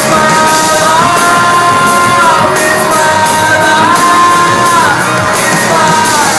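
Live pop music in a large hall: a passage without lyrics, with long held notes that slide from one pitch to the next over a steady drum beat.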